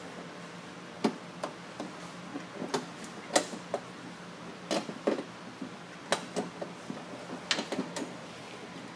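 Irregular sharp metal clicks and clanks, about fifteen in all, as the expanded-metal mesh guard and fittings of a Ditch Witch walk-behind trencher are handled and set back in place.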